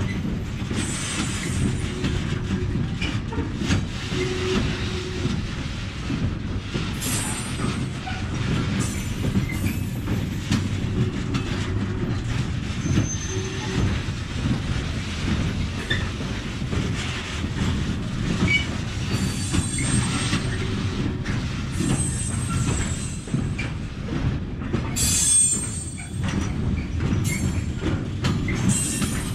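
Freight train of log-loaded flat wagons rolling past: a steady low rumble of wheels on rail with clattering over the joints and now and then a thin metallic wheel squeal, most prominent about 25 seconds in.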